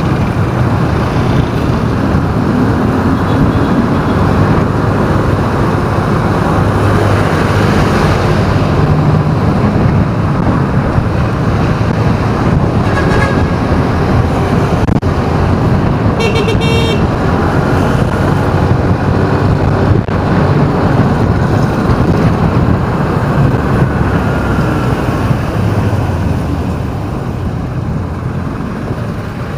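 Vehicle engine and road noise in city traffic, a steady rumble, with a short horn toot a little past halfway.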